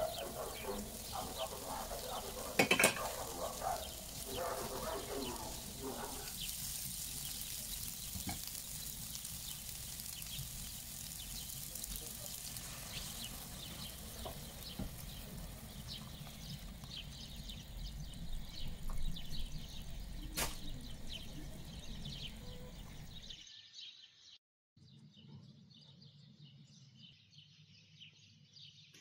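Food sizzling and crackling in a frying pan, with stirring and a sharp knock of a utensil on the pan in the first few seconds. After a cut near the end it drops to a quieter simmer of the cream sauce.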